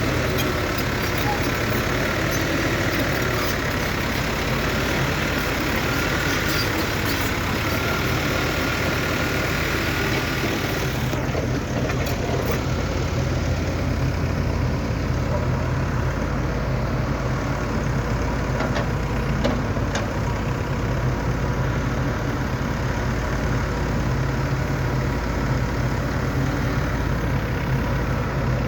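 Excavator's diesel engine running steadily with a low hum. Part way through, the higher hiss drops away and the engine's low hum comes to the fore.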